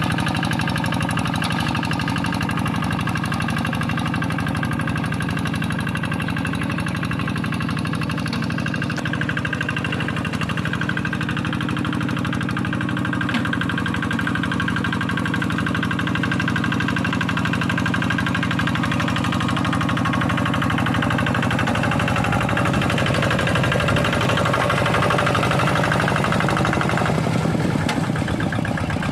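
Kubota single-cylinder diesel engine of a Quick G1000 walk-behind hand tractor running steadily while plowing a wet rice paddy, its fast, even firing beat continuous throughout. The tone shifts a little near the end.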